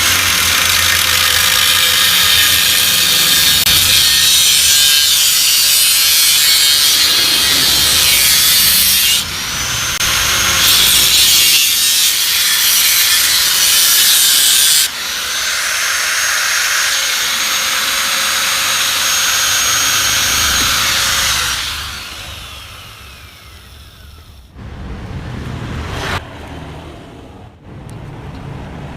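Handheld power tool cutting into the metal of a replica Yamaha RX-King exhaust muffler as it is opened up. It runs in three long bursts, with a whine rising at the start of each later burst. After the last cut, about two-thirds of the way through, the motor's whine falls away as it runs down, followed by a few quieter knocks on metal.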